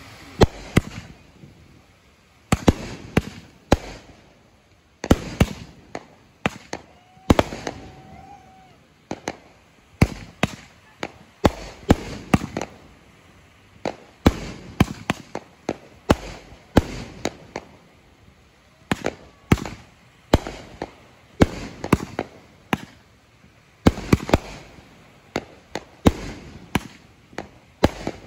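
Aerial fireworks launching and bursting: a long run of sharp bangs, often several in quick succession, each trailing off in a short echo.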